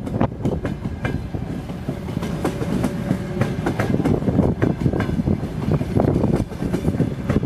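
Passenger coaches of a departing train rolling past at close range. The wheels clack irregularly over rail joints and points, with a steady rumble and a few brief squeaks.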